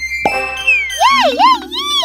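Cartoon-style sound effects over background music: a short thump about a quarter second in, then a wavering tone that swoops up and down three times near the end.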